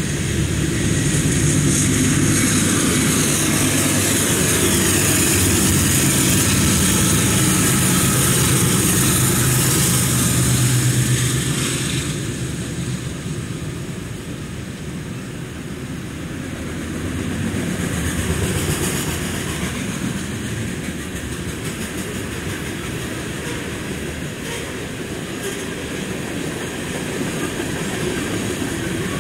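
BNSF freight train cars, tank cars and autoracks, rolling past: a steady rumble and rush of steel wheels on the rails with a high hiss. It is loudest for the first twelve seconds, then eases off and holds steady.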